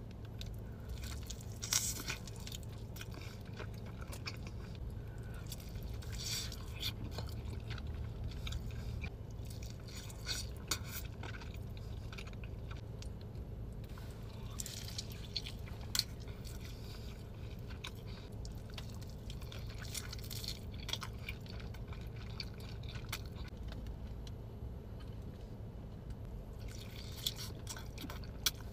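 Close-miked eating: chewing and biting with wet mouth clicks, a few sharper clicks standing out, over a steady low hum.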